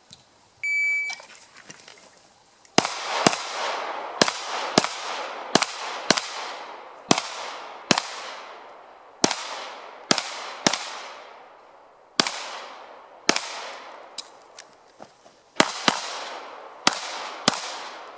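Shot timer's electronic start beep about a second in, then a long string of rapid pistol shots, fired in quick pairs and singles, each ringing out with an echo off the range berm.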